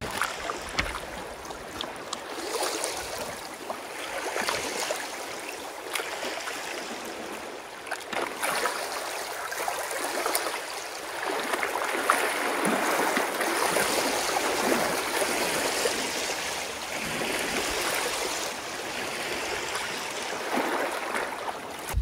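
Water running or lapping: a steady rushing hiss that swells and eases gently, with a few small clicks.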